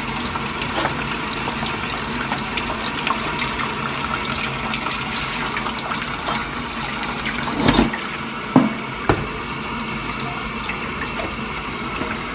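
Kitchen tap running steadily, its stream splashing onto two cabbages and filling a stainless steel bowl. A few short knocks sound about two thirds of the way in.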